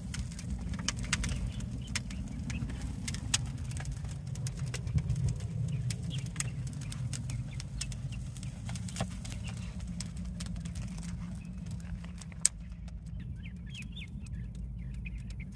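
Split-wood fire burning in the firebox of a large barrel grill, crackling with irregular sharp snaps over a low steady rumble. The snaps end with one loud pop about 12 seconds in, and then birds chirp.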